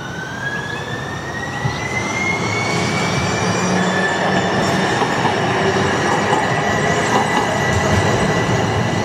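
Streetcar running on rails, with a high-pitched whine that rises over the first few seconds and then holds steady above a rumbling rattle.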